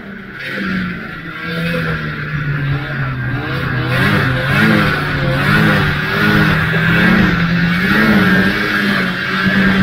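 Ski-Doo Formula Z snowmobile's two-stroke engine running under throttle, its pitch climbing over the first few seconds and then wavering up and down about once a second as the sled crosses the snow, over a steady hiss.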